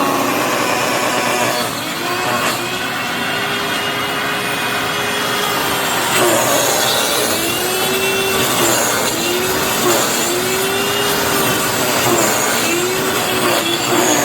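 Hoover FloorMate Deluxe floor cleaner running with a loud grinding, whining noise, its tone wavering up and down in repeated swells. It sounds like it's eating itself: the motor bearings have died.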